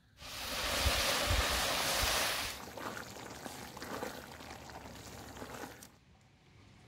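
Hot halva mixture of syrup, butter and flour sizzling and hissing in a large pot: a loud rush for about two seconds, then quieter sizzling with small scrapes of a wooden spoon. About six seconds in it gives way to faint rain.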